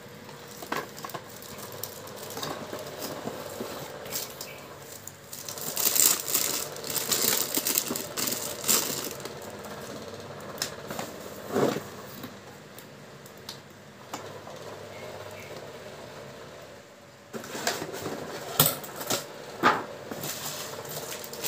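Plastic wrap and cardboard packaging rustling and crinkling as a dome Wi-Fi CCTV camera and its cables are unpacked, with scattered clicks and knocks of the plastic parts set down on a tile floor; a dense run of crinkling in the first half and a few sharp knocks later on. A faint steady hum runs underneath.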